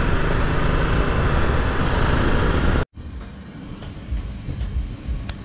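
Steady rush of wind and engine noise from a Ducati Multistrada 1260 Enduro's V-twin while being ridden at road speed, heard from a bike-mounted microphone. It cuts off abruptly about three seconds in, giving way to a much quieter background with a couple of faint clicks.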